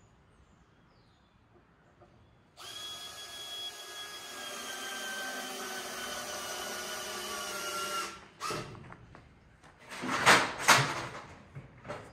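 Power drill running under load for about five seconds, its pitch sagging slightly as it works, then cutting off. About two seconds later come two sharp, loud knocks in quick succession.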